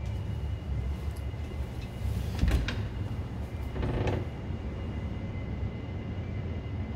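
A small wooden under-stairs closet door being opened: a sharp click or knock about two and a half seconds in, then a short hinge creak around four seconds, over a steady low rumble.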